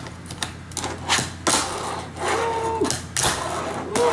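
A run of sharp clacks and knocks, about eight in all, with a brief steady squeak-like tone a little past halfway.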